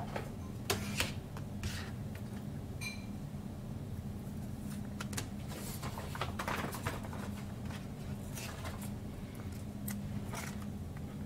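Trading cards being handled on a table: short rustles and clicks as cards slide against each other, over a steady low hum.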